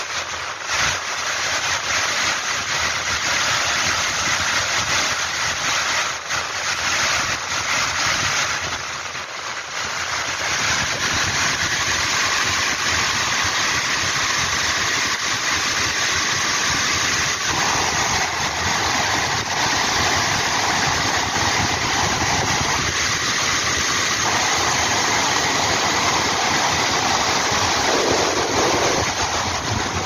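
Steady rushing of a glacial meltwater waterfall cascading down rock ledges.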